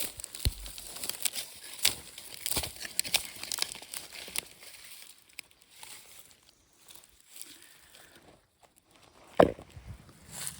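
Crackling and rustling of dry plant material being handled while Jerusalem artichoke tubers are gathered. The crackling is dense at first, thins out after about five seconds, and ends with a single louder thump.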